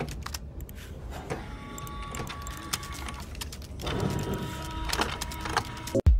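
Intro-animation sound effects: a string of short clicks and taps, like typing and a mouse click, over a steady low rumble and a few held tones.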